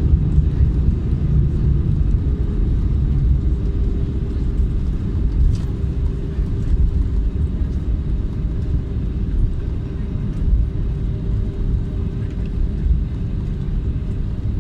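Cabin noise inside an Airbus A320neo around landing: a steady, loud low rumble, with a faint steady hum joining about four seconds in and fading near the end.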